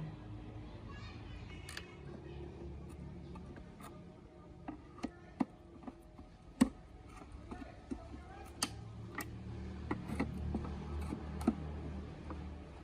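Irregular sharp clicks and light taps of small parts and tools being handled, the loudest about six and a half seconds in, over a low hum that grows louder in the second half.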